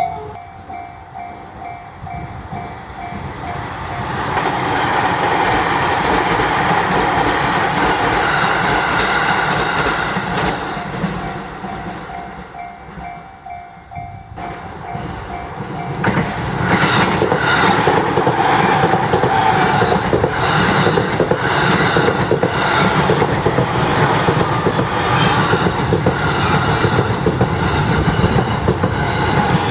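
JR Utsunomiya Line electric trains, a 253-series express and an E231-series commuter train, passing a level crossing. A running rumble builds a few seconds in and eases off, then from about halfway through comes back suddenly louder and steady, with clickety-clack of wheels over rail joints.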